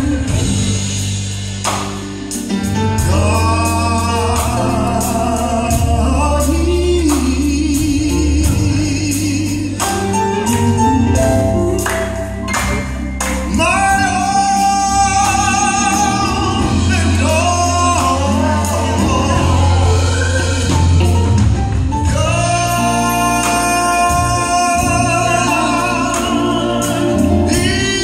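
Gospel choir singing with a male and a female lead singer on microphones, with long held notes, over a deep bass line and sharp rhythmic hits.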